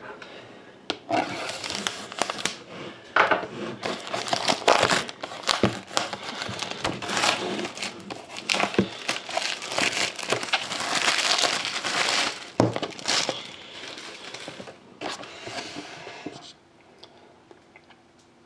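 Plastic shrink-wrap being cut and torn off a sealed trading-card box, a long stretch of irregular crinkling and crackling that stops near the end.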